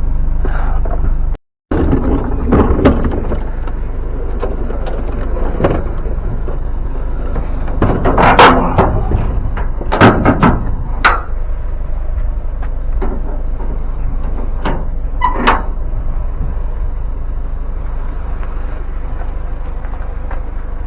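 Vehicle engine idling with a steady low hum, under a series of knocks and clunks as a lawn mower is handled and loaded into the vehicle; the loudest knocks come in the middle.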